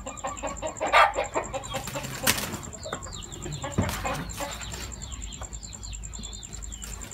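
Two gamecocks sparring: sudden wing-flapping and body strikes, loudest about a second in and again after two seconds, with clucking. Short high chirps keep coming through the second half.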